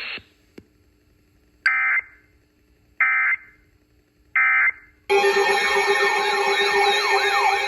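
Three short screeching bursts of EAS SAME digital data, the end-of-message code closing a NOAA Weather Radio severe thunderstorm warning. Each burst lasts well under half a second, and they come about a second and a half apart. About five seconds in, several emergency alert tones start at once, with steady attention tones overlaid by warbling siren-like tones.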